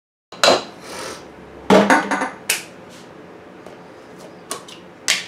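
Sharp clacks and knocks of kitchen utensils: a potato masher against a mixing bowl, then a small plastic tub being handled. There is a loud clack near the start, a cluster of knocks about two seconds in, and single clicks later.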